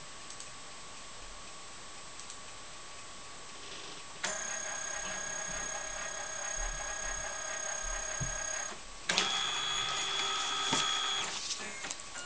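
Canon 9000F flatbed scanner's carriage motor whining steadily as the scan head moves under a book page, starting about four seconds in. It stops briefly around nine seconds, then runs again at a different pitch and fades out shortly before the end.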